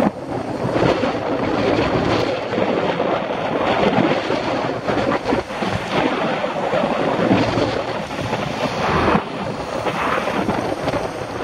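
Wind buffeting the microphone of a camera on a moving bicycle, a dense rushing noise broken by short knocks and rattles as the bike rides over the rough, patched road surface.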